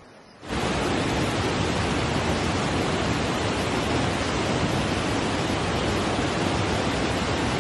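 A torrent of muddy floodwater rushing, a steady dense rush of water that starts abruptly about half a second in.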